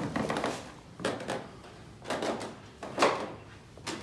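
Footsteps scuffing and crunching over a floor strewn with dry leaves and debris, about one step a second, with wooden knocks; the loudest is about three seconds in.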